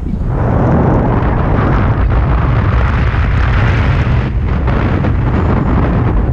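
Strong wind buffeting the action camera's microphone in paraglider flight: a loud, steady rushing roar that swells about a third of a second in.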